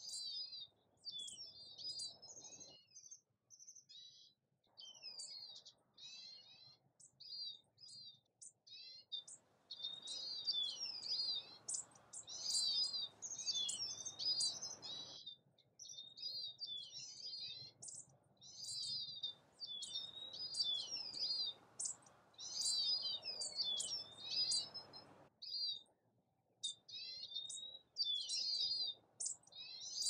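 Small songbirds singing and chirping almost without pause in a rapid, jumbled warble of high notes, with a soft low rushing noise underneath that swells twice for several seconds.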